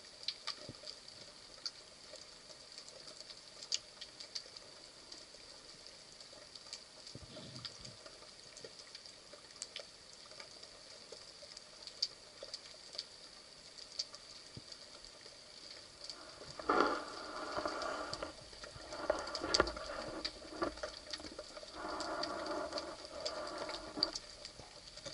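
Underwater ambience heard through a camera on a speargun: scattered sharp clicks and crackle over a faint steady high whine. From about two-thirds of the way in, a louder, rougher rumbling noise comes and goes in several stretches.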